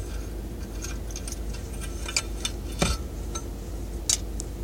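Scattered small clicks and clinks of a ceiling fan's brass light-kit parts being handled as a light socket is worked loose, with one sharper knock near three seconds in. A steady low hum of the car running with the heat on sits underneath.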